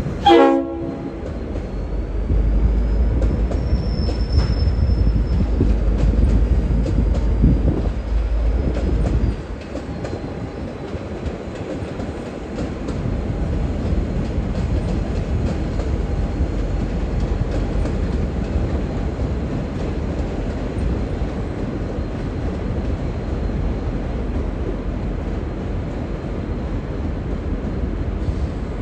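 One short blast of a Leslie RS5T five-chime air horn on a V/Line N class diesel-electric locomotive. It is followed by the locomotive's diesel engine rumbling heavily as it moves, with wheels clicking over rail joints and a thin high squeal. The heavy rumble drops away about nine seconds in, and a steadier running sound carries on.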